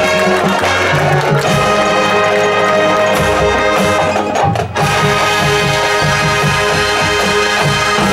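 High school marching band playing the closing bars of its field show: brass holding loud chords over a low drum pattern, with a brief break about halfway through. The music cuts off at the very end.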